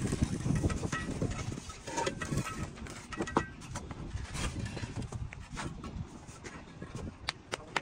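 Concrete blocks and mortar being set by hand: irregular sharp taps and knocks over steady outdoor background noise, with two quick knocks close together near the end.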